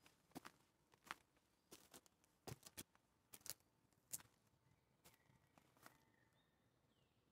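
Near silence, broken by about ten faint, scattered crunches and snaps of footsteps on dry forest-floor litter over the first four seconds. A faint high whistle follows about five seconds in.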